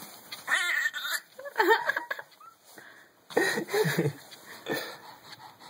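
Baby laughing and squealing in about four short bursts with pauses between them.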